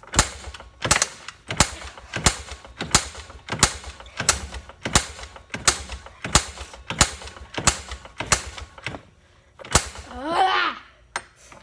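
Kick-starter of a small off-road engine being kicked over and over, a sharp clack about every two-thirds of a second, with the engine not firing. A brief vocal sound near the end.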